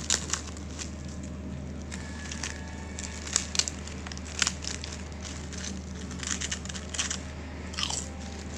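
Thin plastic bag of crackers crinkling and crackling as it is pulled open, in short irregular bursts, then crunching as a cracker is bitten near the end. A steady low hum runs underneath.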